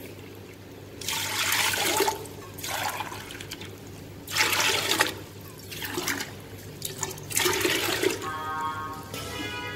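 Water poured from a steel mug into a large aluminium pressure-cooker pot, one mugful after another: several splashing pours, each about a second long. The water is being measured out by the mug for the mutton stock.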